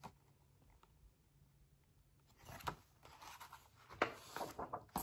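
Pages of a picture book being turned: faint paper rustles and rubs that start about halfway through, after a near-silent start.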